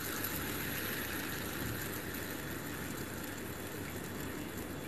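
Fidget spinner spinning: a steady whirring hiss from its bearing, brightest over the first couple of seconds, then easing slightly.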